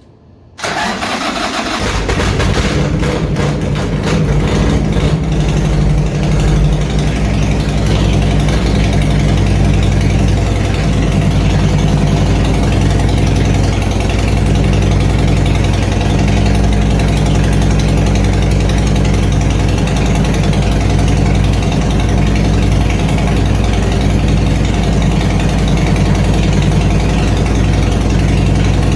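Harley-Davidson V-twin motorcycle engine starting about half a second in, then idling steadily.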